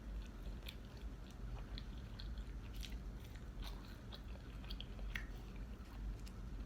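Close-up chewing of fast food in a mukbang: irregular wet mouth clicks and smacks scattered throughout, over a steady low hum.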